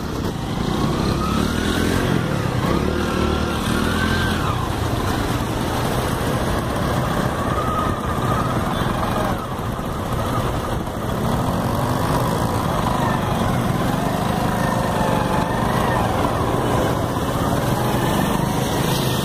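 A vehicle engine running with a steady low drone, its pitch sliding up and down.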